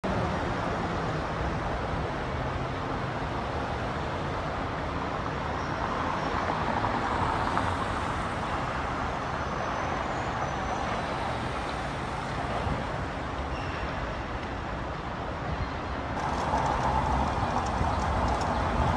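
City street traffic: a steady wash of passing cars and other vehicles. Near the end, footsteps on a paved sidewalk add light clicks.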